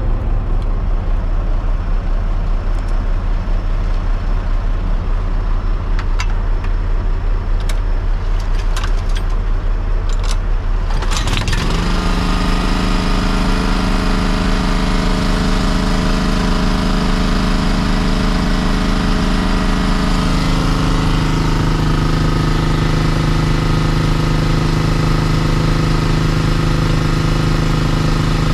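Small engine of a Lukas hydraulic rescue-tool power unit starting and running steadily: after a low engine rumble with a few sharp clicks, a stronger engine note catches a little under halfway through, then drops slightly in pitch and steadies about two-thirds of the way in.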